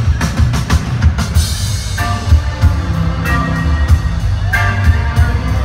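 Live pop-rock band playing loud in an arena, with a heavy kick drum and bass pounding steadily; a melody comes in about two seconds in.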